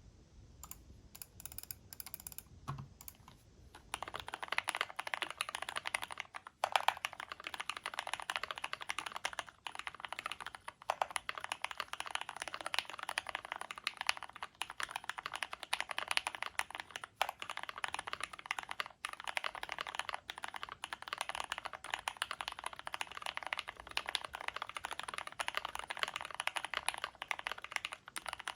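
Typing on a KBDFans KBD75v3 mechanical keyboard with Gateron Milky Brown tactile switches, an aluminium plate, PBT keycaps and foam-filled case. A few scattered keystrokes at first, then fast, continuous typing from about four seconds in.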